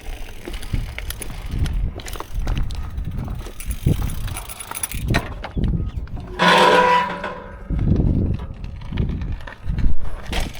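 Mountain bike rattling over a rough trail, with low rumble and irregular knocks from the frame and tyres. A short pitched sound comes about six and a half seconds in.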